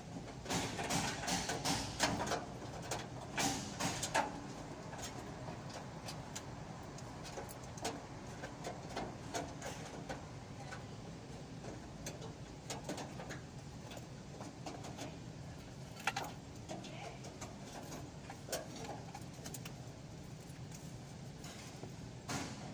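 Irregular sharp clicks and knocks, bunched in the first few seconds and then scattered, over a low steady background hum.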